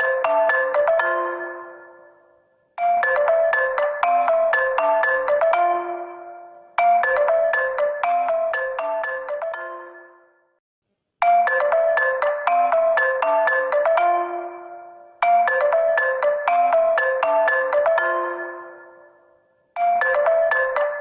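HONOR smartphone ringtone: a short tune of quick notes looping, each phrase fading out before it starts again about every four seconds.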